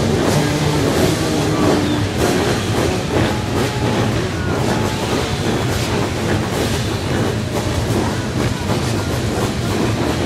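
A full start grid of motocross sidecar outfits revving their engines together at the start gate before the gate drops, a loud, continuous mass of engine noise.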